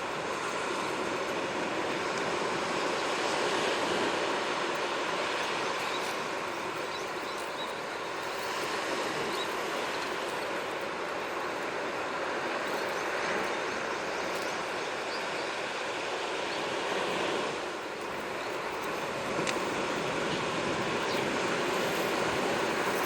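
Sea waves washing onto the shore: a steady rush that slowly swells and eases, dipping briefly near the end.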